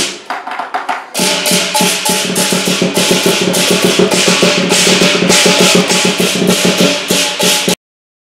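Music with loud drums and percussion beating in a steady rhythm, cutting off suddenly near the end.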